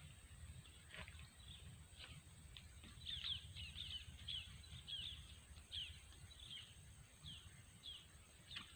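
A bird calling faintly in a series of short, falling chirps, roughly two a second, over a low outdoor background rumble.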